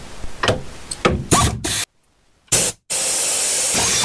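Sharp metallic clicks and taps from a hand tool working a suspension nut, then, after a brief cut, a pneumatic air ratchet running with a loud steady hiss of air for about a second near the end.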